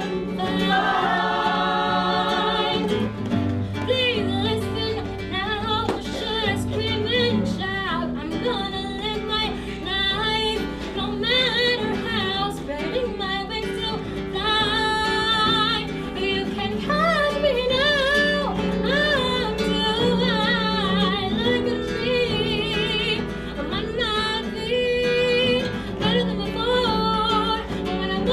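Music: a song with a singing voice that wavers with vibrato, over a steady instrumental accompaniment.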